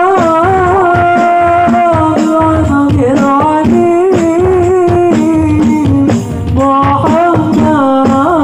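Hadrah ensemble: a high voice singing long, ornamented, sliding notes in an Islamic devotional song over steady rebana frame-drum strokes.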